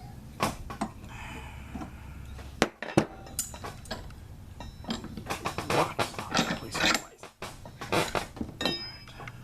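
Steel AR wrench cranking a Geissele barrel nut tight on an AR upper: scattered metal clinks and knocks, two sharper knocks about three seconds in, and a busy run of clinks in the second half.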